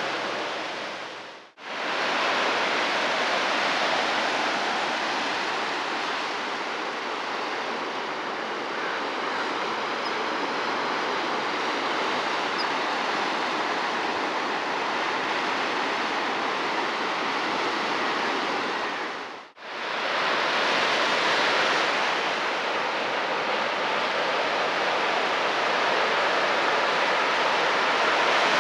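Ocean surf breaking and washing over a rocky cobble shore: a steady rushing wash that drops out briefly twice.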